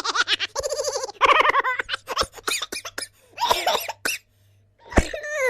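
Human laughter sound effect: a voice laughing in quick, pulsed 'ha-ha' bouts, several short bouts with brief pauses between them. Near the end a sharp click is followed by a laugh that slides downward in pitch.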